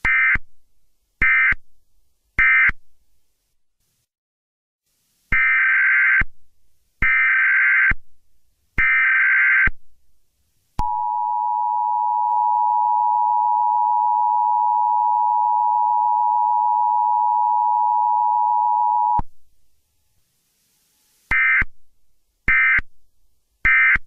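Harsh electronic bleeps in a Morse-like rhythm: three short, then three longer ones, then a steady two-note tone held for about eight seconds that cuts off suddenly, then three short bleeps again.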